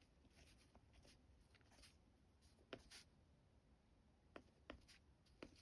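Faint scratching of a Caran d'Ache Neocolor II crayon on rough cotton rag paper. About five light taps come in the second half as small flecks are dabbed on.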